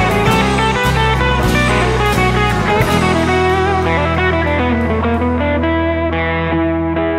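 Background song in an instrumental stretch: guitar playing over a backing with drums, the drum hits dropping away about three seconds in and leaving held guitar and bass notes.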